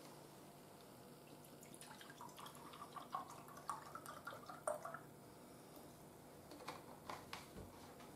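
Vegetable juice poured from a plastic bottle into a drinking glass: faint glugging and splashing for about three seconds, starting about two seconds in, followed by a few light clicks near the end.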